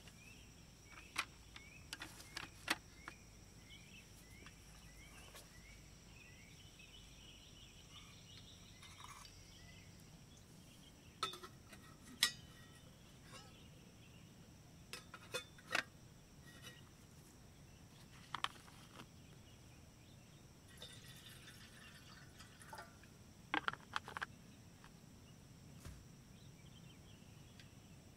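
Scattered sharp metal clinks and knocks as a stainless gooseneck kettle and small metal cookware are handled on a canister gas stove. Insects chirp steadily in the background, with a short repeating chirp during the first several seconds.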